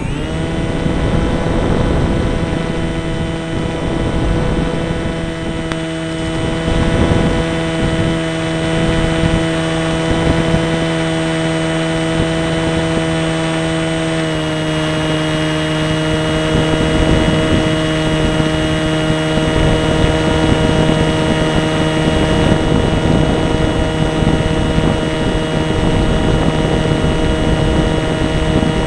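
RC model airplane's motor and propeller running at a steady high pitch, heard from a camera on board, with a rough rush of wind underneath; the pitch steps slightly lower about halfway through.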